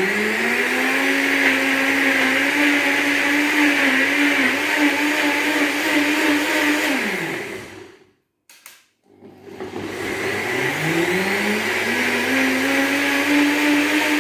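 Electric kitchen blender blending onions, garlic, ginger and peppers with a little water. The motor spins up with a rising whine, runs steady, winds down after about seven seconds, and after a short silence spins up again and runs on.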